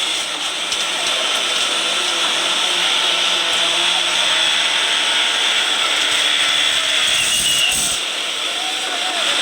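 Heavy machinery running steadily: a loud, even hiss-like noise, with a faint low hum through the first half.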